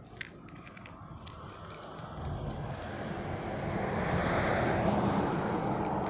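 A motor vehicle passing on the road, its engine hum and tyre noise swelling over a few seconds to a peak near the end, then starting to fade. A few small, sharp clicks near the start.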